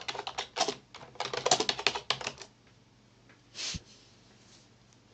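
Computer keyboard typing: a quick run of keystrokes for about two and a half seconds, then one more short sound about a second later.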